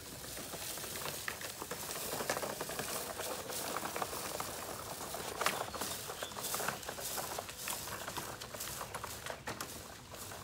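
Push broadcast spreader rolling over wet soil, a dense run of small clicks and crackle from its gears and spinning plate as it flings grass seed.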